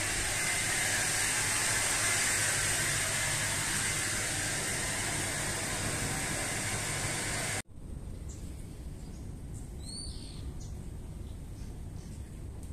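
A steady hiss with a faint high whine for the first seven seconds or so, then a sudden cut to quieter outdoor background in which a few birds chirp, a couple of seconds later.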